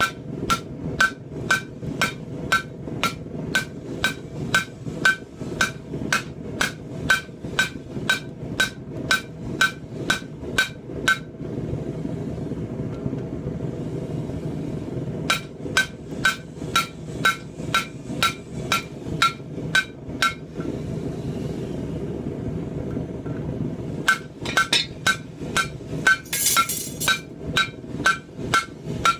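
Blacksmith's hand hammer striking red-hot steel on an anvil, about three blows a second with a bright ring on each. The hammering comes in three runs, stopping for a few seconds about a third of the way in and again about two-thirds in. A steady low rumble runs underneath.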